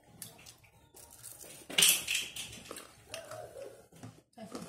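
Eating crispy fried food by hand: one loud, sharp crunch about two seconds in, followed by quieter chewing and handling noises.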